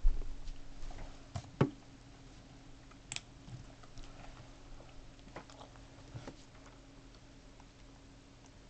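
Scattered sharp clicks from a computer mouse and keyboard being used to navigate a web page, with a loud knock right at the start and a few clicks in the first few seconds. Underneath is a steady low hum.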